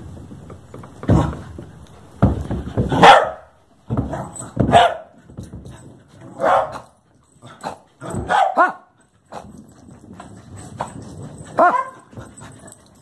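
Dogs barking during rough play: about ten short, sharp barks at irregular intervals of roughly a second, some coming in quick pairs.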